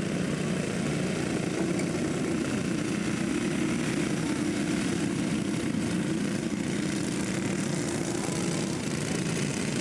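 A pack of dirt racing karts at race speed, their many small engines running together in a steady drone.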